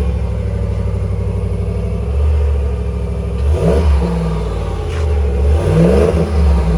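2021 Ram 1500's 5.7-litre Hemi V8 running just after start-up on its factory exhaust, a steady idle that rises briefly in engine speed twice, once about halfway through and again near the end.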